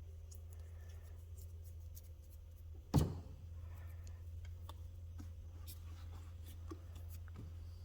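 A single loud knock about three seconds in, over a steady low hum, with faint scattered small clicks.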